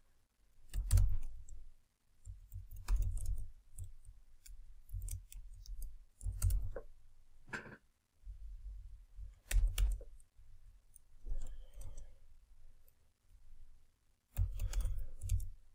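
Computer keyboard typing in irregular bursts of keystrokes with short pauses between, each keystroke a click with a dull low thud.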